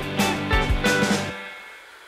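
Background music with guitar and a steady drum beat that cuts off about a second and a half in, leaving the faint steady hiss of a hand-held hair dryer blowing.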